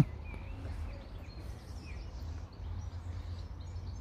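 Faint birds chirping over a steady low rumble.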